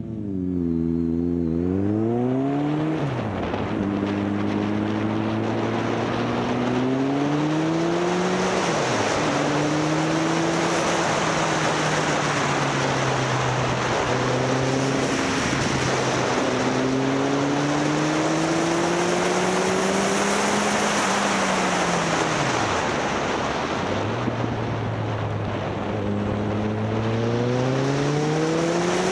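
Motorcycle engine under way, its pitch climbing and then dropping back several times as the rider shifts up and eases off. Heavy wind rush on the microphone runs underneath.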